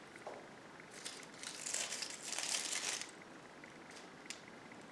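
Hands rustling and crinkling dry decorating material while arranging a planted bowl, loudest about one and a half to three seconds in, with a few small clicks.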